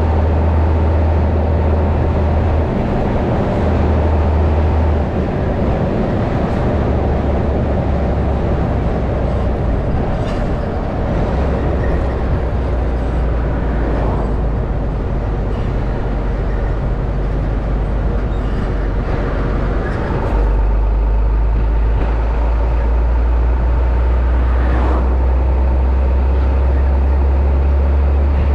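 Truck on the move: steady diesel engine drone with road and tyre noise, the low engine note shifting in steps several times and rising clearly about twenty seconds in.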